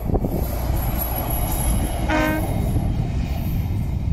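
Rail inspection car running past along the track with a steady low rumble, and one short horn blast about halfway through.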